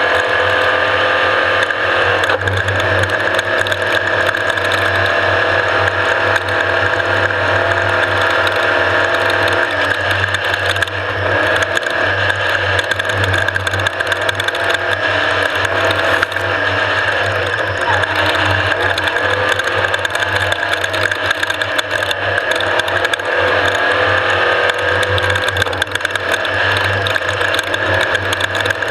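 Off-road race vehicle running hard, with a dense mechanical rattle and a gear-and-engine whine that rises and falls with speed.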